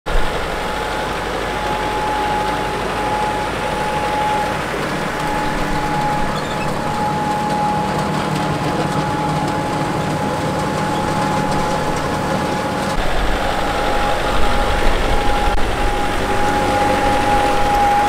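John Deere 6130R tractor on rubber tracks running under steady load while pulling a working AVR potato harvester, with a steady high whine over the engine. It gets louder and more uneven from about two-thirds of the way through.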